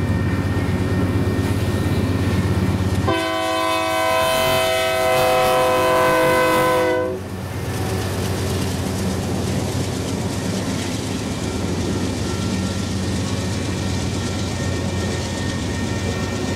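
Union Pacific freight train passing: the diesel locomotive's low rumble, then its air horn sounding one steady multi-note chord for about four seconds starting about three seconds in. After the horn, a steady rolling noise of the freight cars running over the rails.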